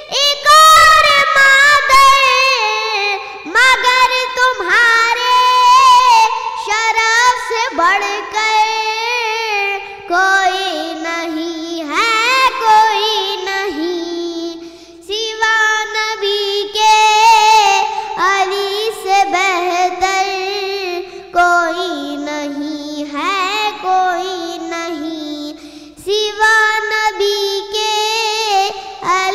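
A young boy singing a devotional Urdu poem in praise of Ali (a manqabat) solo, in a high voice, with long ornamented phrases that waver and slide in pitch, breaking every few seconds.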